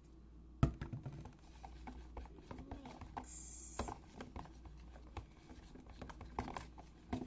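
Irregular light clicks and taps of a clear plastic food container being handled, with one sharp click under a second in and a short hiss a little after three seconds.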